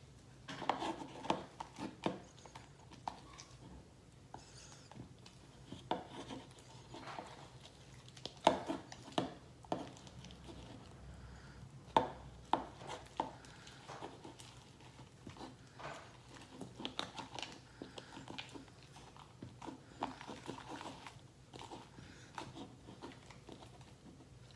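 Homemade slime being played with by hand, pressed, stretched and poked: irregular sticky clicks and snaps in clusters, the sharpest about eight and twelve seconds in, over a faint steady low hum.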